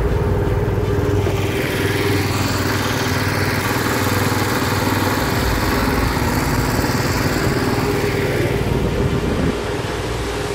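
Small petrol engine of a long-tail boat running steadily at speed, its shaft churning water. It eases off slightly near the end.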